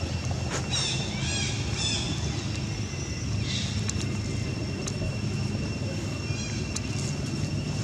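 Outdoor background of a steady low rumble and a steady high thin whine, with a quick run of short high chirping calls about a second in and a few fainter ones later.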